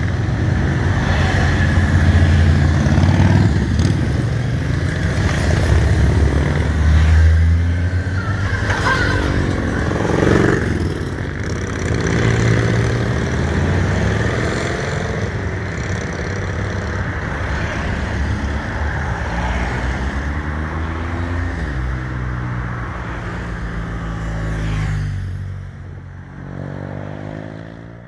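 A column of motorcycles riding past one after another, their engines running loud and steady. Several pass by with the pitch sliding as each goes by, and the sound fades away over the last few seconds.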